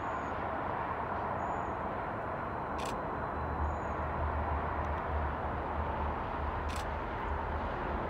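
Distant diesel-electric locomotive (Union Pacific SD70AH-T4) coming out of a tunnel, its low engine rumble growing stronger about halfway through over steady outdoor noise. A few short high chirps and a couple of faint clicks.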